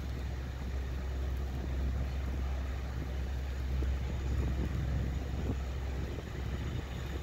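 LIRR DE30AC diesel-electric locomotives approaching slowly, a steady low engine rumble that swells a little near the end.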